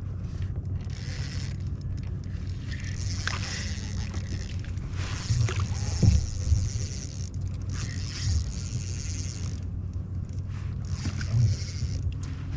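Handling noise in a plastic fishing kayak while an angler plays a hooked fish on rod and reel: a steady low hum under stretches of hiss, with a few dull knocks, the loudest about halfway through.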